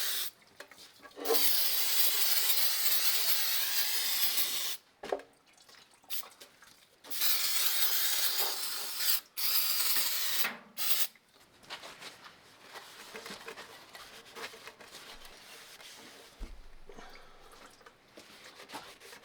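Three long hissing bursts of spray in the first ten seconds or so, cleaning a tractor's oil filter screen, then quieter handling of parts.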